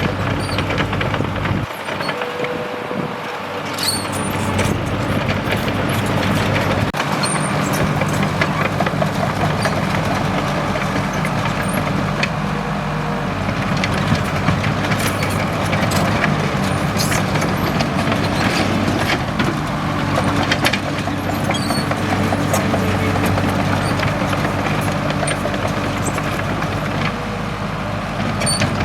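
Komatsu D37EX crawler bulldozer's diesel engine running steadily under work, with frequent short metallic clanks and knocks over it. The engine eases off briefly about two seconds in, then comes back up.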